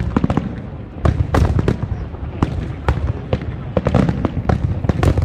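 Aerial fireworks display going off: a rapid, irregular series of about a dozen bangs and booms from bursting shells.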